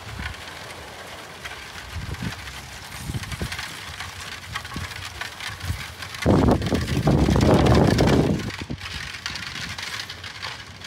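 A horse-drawn buggy passing on gravel: the spoked wheels crunch and crackle over the stones and the trotting horse's hooves thud unevenly. About six seconds in, a louder low rush lasts some two seconds.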